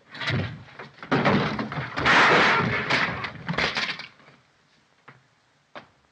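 Slapstick crash of a brass bed frame and falling bodies: a run of clattering impacts and breaking that builds, is loudest about two seconds in, and dies away after about four seconds. A couple of faint knocks follow.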